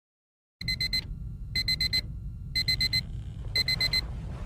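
Electronic alarm beeping in quick groups of four, one group about every second, starting about half a second in, over a low rumble.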